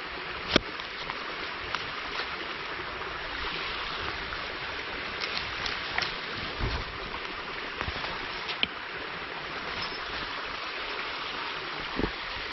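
Steady rushing of a mountain stream, with a few short sharp knocks and scrapes scattered over it.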